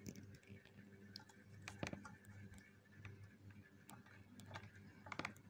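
Faint scattered clicks and light knocks of hands handling wires and plastic parts inside an opened steam iron's housing, over a faint steady low hum.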